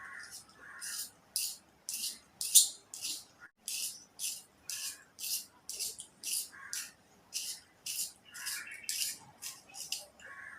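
Rhythmic crunching of brittle slate pencil pieces being chewed, about two crisp crunches a second, with softer mouth sounds between them.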